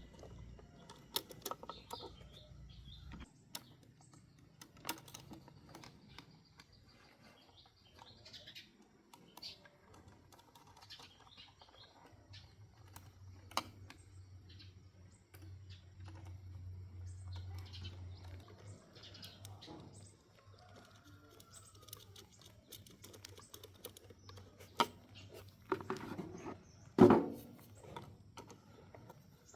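Scattered light clicks and taps of repair work, as tools and parts are handled, with birds chirping in the background. A few louder knocks come near the end.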